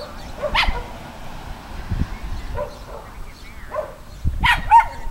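Chihuahua giving several short, yappy barks, spaced a second or so apart, the loudest near the end.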